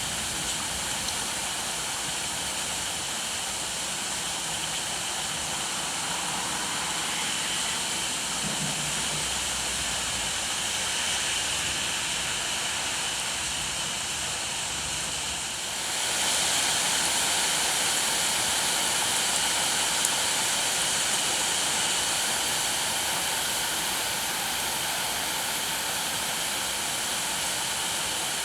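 Steady heavy rain, a dense hiss. About halfway through it gets louder and a low rumble underneath drops away.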